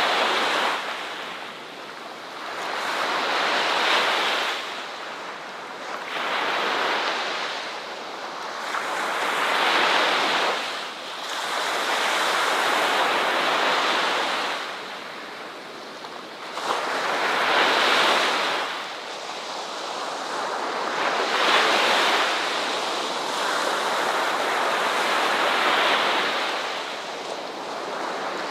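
Ocean waves breaking and washing onto a shore, swelling and fading, with a new surge every few seconds.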